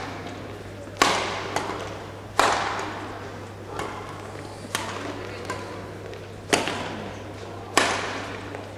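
Badminton rally: rackets striking the shuttlecock, five sharp smacks about one to two seconds apart, each ringing out in a large echoing hall, with a few lighter knocks in between.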